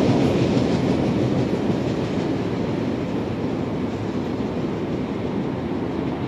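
Train rolling past on the track, its wheel and rail noise fading steadily as it moves away.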